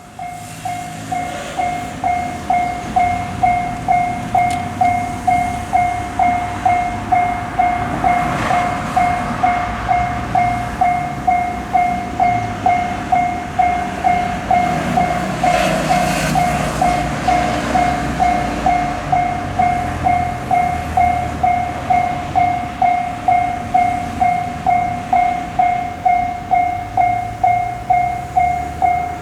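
Japanese level crossing alarm ringing its steady "kan-kan" at a little under two strikes a second. A passing train's rumble swells and fades twice, around a third of the way in and just past halfway.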